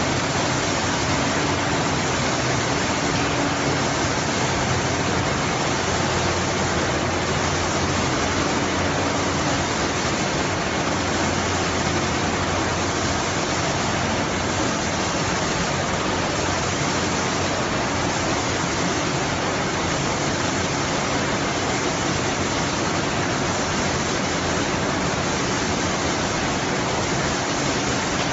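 Steady loud rush of the air-blowing fans over a french fries mesh-belt conveyor, with a faint low machinery hum under it.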